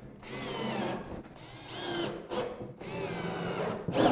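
Cordless drill-driver driving screws through plastic foot mounting plates into a melamine cabinet base, in three short bursts with a motor whine that rises and falls in pitch. A sharp knock comes near the end.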